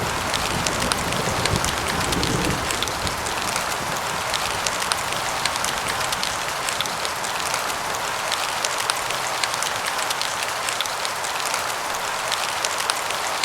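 Steady rain with many distinct drop taps. A low thunder rumble dies away in the first couple of seconds.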